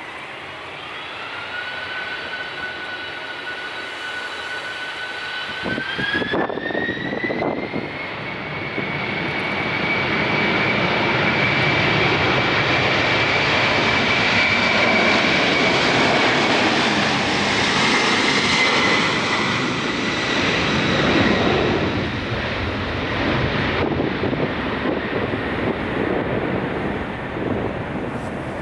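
Jet airliner's turbofan engines whining and climbing in pitch during the first six seconds, then a loud roar that builds, holds, and fades as the aircraft passes.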